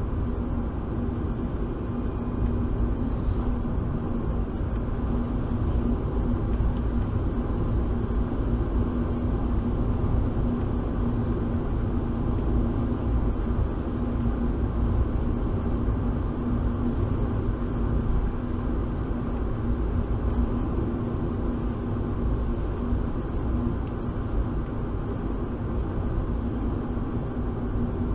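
Car driving in town traffic, heard from inside the cabin through a dashcam microphone: a steady low rumble of engine and road noise with a constant hum, played back at double speed.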